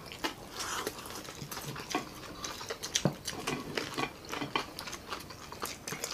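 Several people chewing crispy pata (deep-fried pork knuckle) close to the microphone: irregular wet smacks and crunches, with no steady rhythm.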